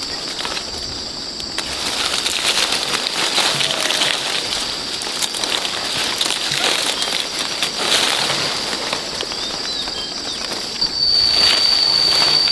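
Soursop tree leaves and branches rustling as fruit is grabbed and picked by hand, over a steady high insect drone that gets louder near the end.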